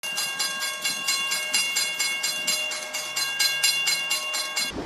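Battery-powered toy steam train running on its plastic track: a fast, even clicking, about six a second, over a steady high motor whine. It cuts off abruptly just before the end.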